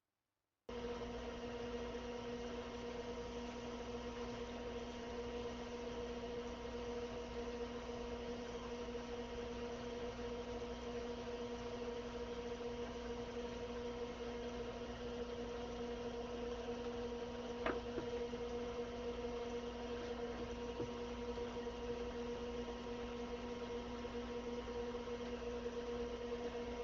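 Steady hum of a machine or electrical equipment, even and unchanging, with a single faint click about eighteen seconds in.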